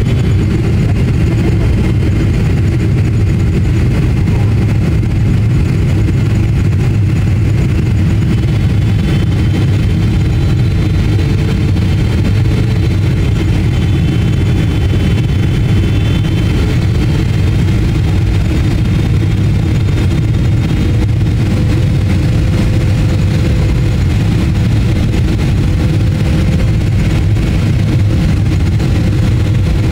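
Cabin noise of a Boeing 777-300ER on final approach: a steady, loud low rumble of airflow and its GE90-115B turbofan engines, with a faint high engine whine held above it.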